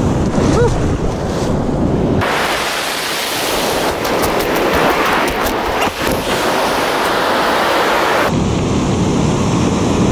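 Ocean surf washing up the beach, with wind rumbling on the microphone. For several seconds in the middle the rumble drops out suddenly and a bright hiss with scattered clicks takes over, then the rumble returns.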